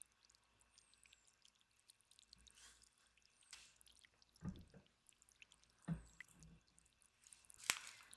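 Quiet hand-handling of chocolate sandwich cookies on a metal wire cooling rack: two soft thuds about halfway through as cookies are set down, and a sharper click near the end.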